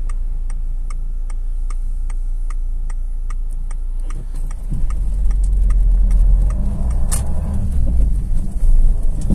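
Indicator relay ticking steadily inside a Peugeot 207's cabin, about two and a half clicks a second, over the engine's low hum. About four and a half seconds in, engine and road rumble grow louder as the car pulls away in first gear.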